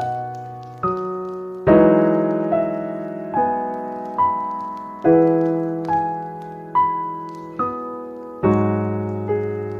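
Slow solo piano music: a note or chord struck a little more than once a second, each ringing and fading away before the next.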